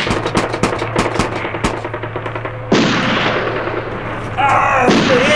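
Gunfire: a rapid volley of sharp shots for about the first two seconds, then two heavier blasts with long fading tails, about three and five seconds in.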